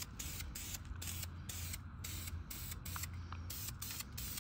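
Aerosol spray-paint can hissing in short, quick bursts, two or three a second, as a steering spindle is spray-painted.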